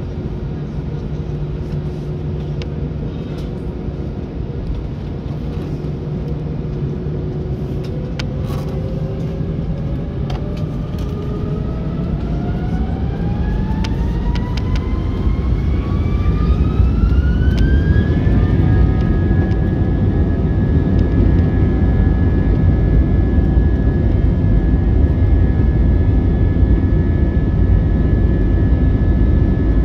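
An Airbus A321's IAE V2500 turbofan engines spool up to takeoff thrust, heard from the cabin. A whine climbs steadily for about ten seconds, then holds at one high pitch. Under it, a low rumble grows louder as the takeoff roll begins.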